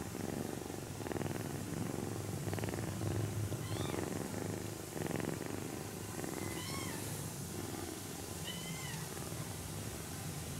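A sleeping kitten purring steadily as it is stroked, a continuous low pulsing rumble. Three short high chirps sound faintly in the background at about 4, 7 and 9 seconds.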